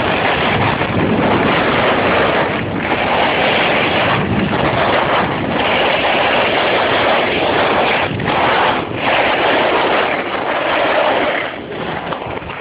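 Wind rushing over the microphone and skiboards scraping across the snow during a fast downhill run. The rush dips briefly several times and grows quieter near the end as the run slows.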